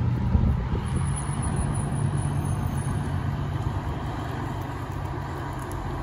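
Aerial ladder fire truck's diesel engine running steadily as the truck rolls slowly out of the station bay, a low hum that fades slightly toward the end.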